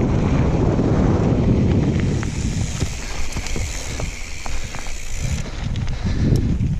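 Wind buffeting the action camera's microphone as a mountain bike rolls fast down a dirt and gravel trail, with tyre crunch and scattered clicks and rattles from stones and the bike. The heavy wind rumble eases after about two and a half seconds and swells again briefly near the end.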